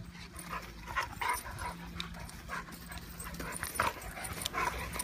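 Two dogs play-fighting, giving a string of short, quick vocal sounds through the tussle.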